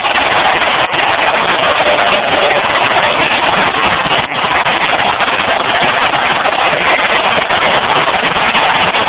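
A packed basketball arena crowd cheering in one loud, continuous wall of noise, with no single voice standing out.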